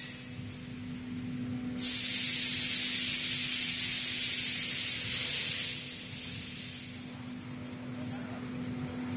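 A loud hiss of air released from the laser-cutting and sorting cell's pneumatics, starting about two seconds in, holding steady for about four seconds, then dropping off in two steps. A steady low machine hum runs underneath.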